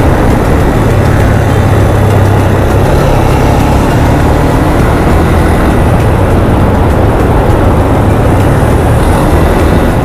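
Motorcycle engine running steadily while riding at cruising speed, with wind rushing over the microphone.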